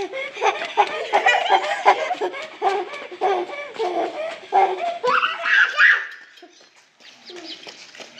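A young child laughing in quick repeated bursts for about six seconds, rising to a higher squeal near the end, then softer.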